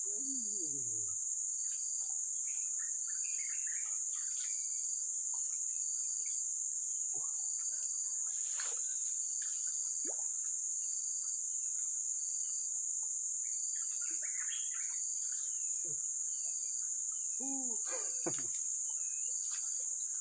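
Steady high-pitched insect chorus in tropical forest, with a short high chirp repeating a little more than once a second and scattered bird calls.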